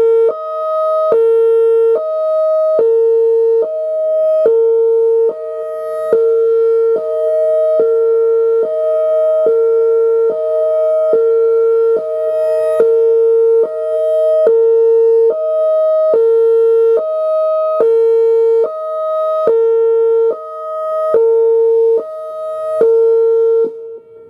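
Whelen Vortex R4 electronic warning siren sounding its Hi-Lo signal: two steady tones swapping back and forth, high and low, a little under once a second. The signal cuts off near the end.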